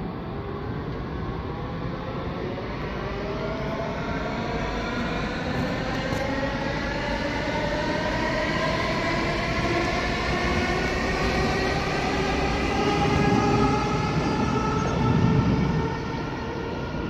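DB Class 430 S-Bahn electric multiple unit accelerating away, its traction motors giving a whine of several tones that rises steadily in pitch over rolling rail noise. The sound grows louder throughout, with a heavier low rumble near the end.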